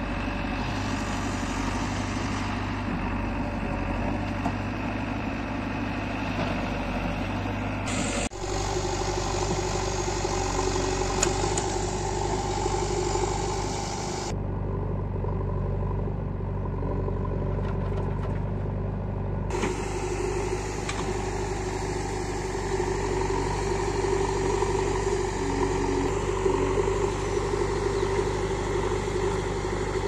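JCB 3DX backhoe loader's diesel engine running steadily under work, with a low steady hum. The sound changes abruptly about eight, fourteen and nineteen seconds in.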